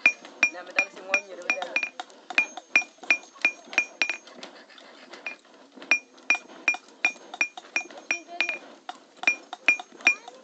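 Hand-held hammer striking metal on a stone anvil in quick ringing blows, about three a second, stopping briefly twice.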